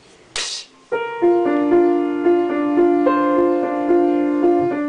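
A short hiss, then about a second in a piano starts playing a simple pattern: repeated notes struck two to four times a second over held lower notes.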